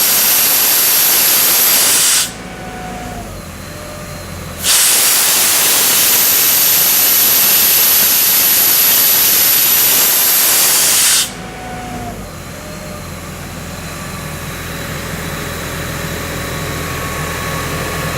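Ingersoll Rand P175 towable air compressor blowing off compressed air with a loud, steady hiss that cuts off about two seconds in, restarts a couple of seconds later for about six seconds, and stops again. Between and after the blasts, its John Deere diesel engine is heard running steadily.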